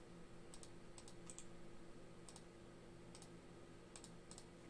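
Near silence with about a dozen faint, scattered clicks over a low steady room hum.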